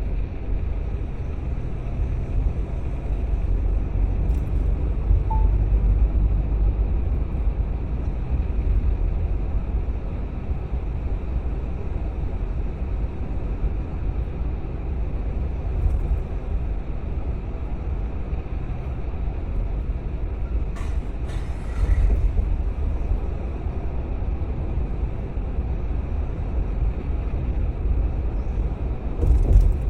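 Steady low rumble of a car driving, with engine and road noise. A brief sharper noise comes about two-thirds of the way through, and another comes just before the end.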